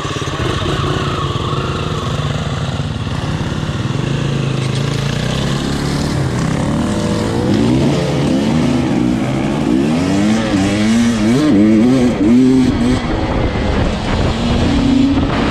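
KTM 300 XC-W two-stroke enduro bike's engine being ridden hard, its pitch rising and falling again and again from about halfway through as the throttle is worked.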